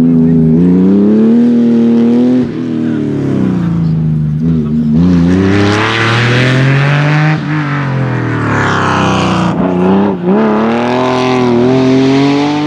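Air-cooled flat-six engine of a classic Porsche 911 rally car at full throttle, its pitch climbing and then dropping sharply several times as it shifts and lifts off, fading a little as the car moves away.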